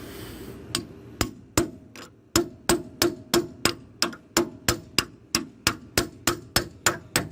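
Hammer blows driving a pickle fork (ball joint separator) in to pop the seized tapered stud of a Jeep Cherokee track bar out of its mount. A few spaced strikes, then steady blows about three a second, each with a short metallic ring.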